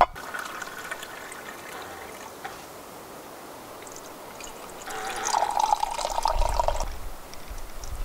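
Tea poured from a camp kettle into a mug, the pour loudest from about five to seven seconds in.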